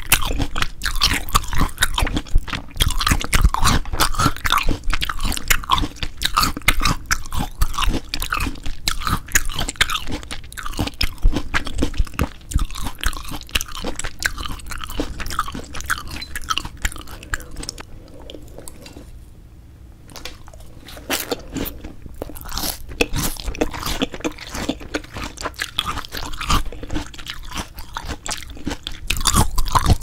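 Close-miked chewing and mouth sounds of yukhoe, Korean seasoned raw beef, being eaten: a dense run of wet clicks and smacks that eases off briefly about two-thirds of the way through.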